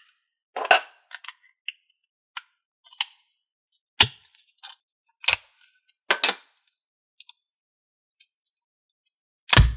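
Handling of Aaron's Thinking Putty and its small metal tins: a string of separate sharp clicks and taps at irregular intervals, about six clear ones, the loudest near the end with a dull thud in it.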